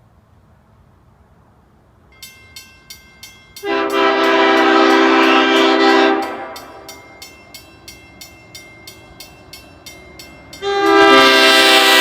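Nathan Airchime K5H five-chime train horn (two-piece 1L, 1, 2, 3 and 5 bells) sounding a chord in two long blasts. The first lasts about two and a half seconds, starting about four seconds in. The second starts near the end and is still sounding. Under and between the blasts runs a fast, even ringing, about three strikes a second.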